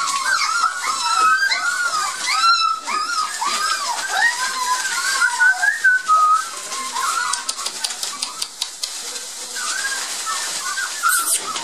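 A litter of Border Collie puppies whining and squealing, many high arching cries overlapping one another. Shredded newspaper rustles under them as they move, most about two-thirds of the way through.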